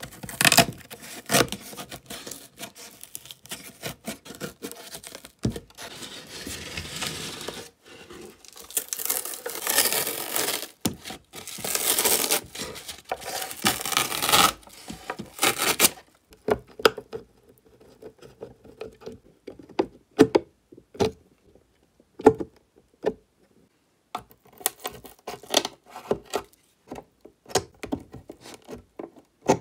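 Old covering material being torn and peeled away from the wooden frame of a vintage suitcase, in long ripping, scraping pulls. About halfway through this gives way to sparse clicks and ticks as pliers work small nails out of the wooden edge.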